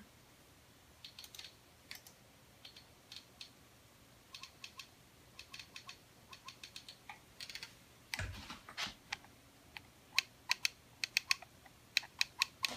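Apple Mighty Mouse clicking as its scroll ball is rolled and its button pressed: sharp little clicks in short runs, with a brief rustle of handling partway through. The clicks get louder and come faster near the end.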